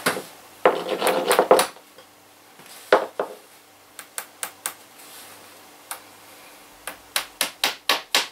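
Hammer tapping in the nail of a cable clip to fix a power cable to a wall: a cluster of strikes about a second in, a few scattered single taps, then a quick run of about seven light taps near the end.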